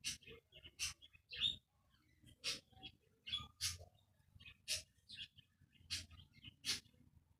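Parrot chirping in a series of short, scratchy calls, about one or two a second, with smaller chirps in between.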